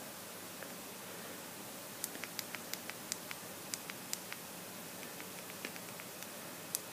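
A quick run of about a dozen small clicks, then a few more spaced out: a Samsung Galaxy S3's volume rocker being pressed over and over to scroll through the recovery menu. A steady hiss runs under the clicks.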